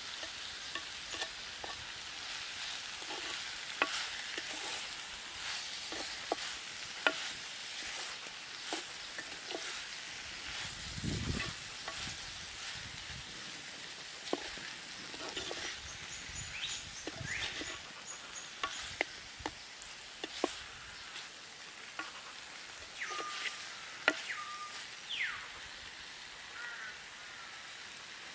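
Food sizzling as it fries in a pan and is stirred, with a spoon knocking and scraping against the pan many times.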